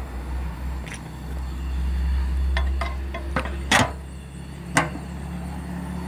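Low rumbling rush of a wood fire drawing hard in a steam boiler's firebox under strong blower-ring draft. Over it come several sharp metallic clanks as the steel firebox door is swung shut and latched, the loudest a little past the middle.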